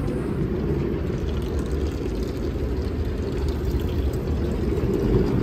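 Automatic car wash spraying water and foam onto a car, heard from inside the closed cabin: a steady, muffled rushing of water on the body and glass.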